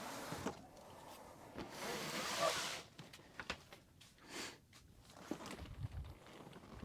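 Cardboard model-kit boxes being handled and stacked: sliding and rubbing noises with a few light knocks, the longest and loudest slide about two seconds in.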